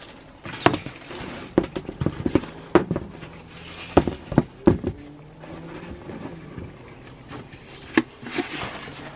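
Corrugated cardboard being handled, bent and pushed into place on a wooden feeder frame: irregular knocks, taps and scrapes, the sharpest about four and eight seconds in.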